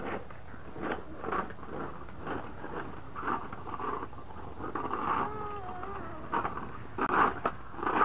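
Irregular knocks and scuffs of people moving on concrete porch steps, over a steady low hum. About five seconds in there is a brief, faint, wavering young child's voice.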